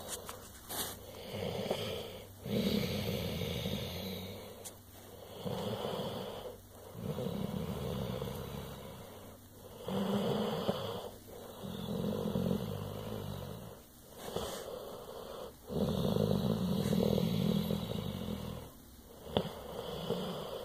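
Pit bull making a low, snore-like rumble that swells and fades over and over, each swell a second or two long: the contented rumble its owner calls purring.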